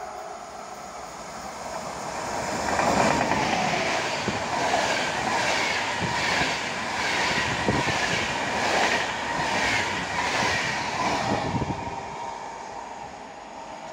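InterCity passenger train hauled by an EU44 electric locomotive passing, its wheels clacking over rail joints in a steady rhythm of about one and a half strokes a second. It grows louder about three seconds in and fades near the end.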